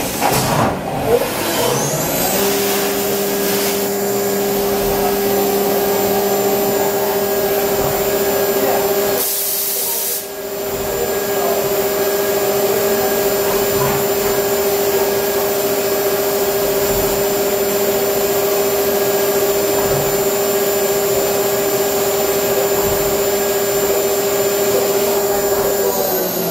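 Computerized milling machine spindle spinning up to a steady whine of several held tones, running, then winding down near the end. A brief hiss about nine seconds in.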